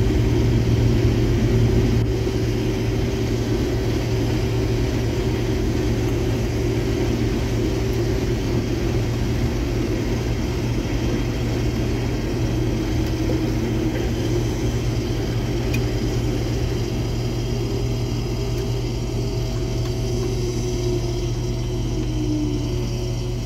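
Combine harvester running steadily while picking corn, a constant machinery drone, a little louder in the first two seconds.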